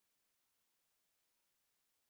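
Near silence: the faint, even room tone of an empty room.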